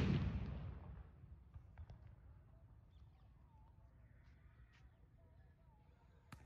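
The tail of a big firecracker blast dies away over the first second. After that it is quiet except for a few faint ticks and some faint, short wavering bird calls.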